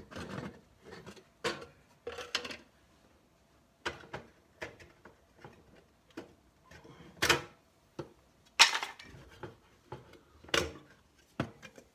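Irregular knocks, clunks and scraping of wood and metal inside an antique steel safe as a hand works at a wooden support and a stuck metal drawer box. There are three louder bangs in the second half.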